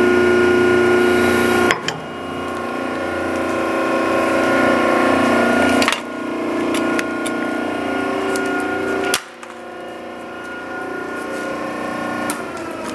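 Hydraulic press motor running steadily under load as the ram crushes a plastic-housed angle grinder, with sharp cracks of the housing giving way. The sound drops suddenly three times, about 2, 6 and 9 seconds in.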